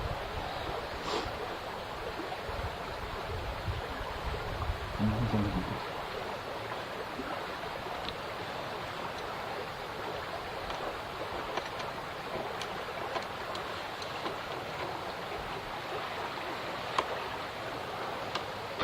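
Steady rushing outdoor noise, with a few faint clicks and a brief low sound about five seconds in.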